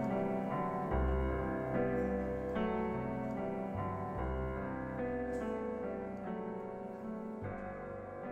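Slow solo piano music, single notes and chords struck about once a second and left to ring, gradually getting quieter.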